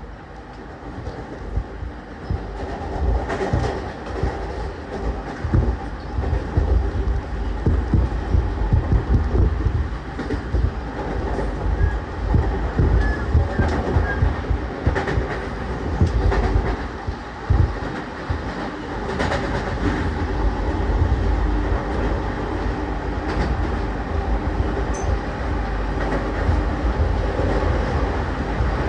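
JR East E231-1000 series commuter train motor car running on its original, not-yet-renewed traction equipment: a steady rumble of wheels and traction motors with clicks over rail joints, growing louder over the first several seconds.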